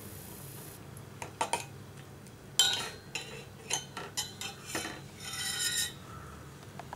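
Metal ladle stirring stevia leaves boiling in water in a metal pot, clinking and scraping against the pot's side: a string of separate clinks, the loudest about two and a half seconds in, then a longer ringing scrape near the end.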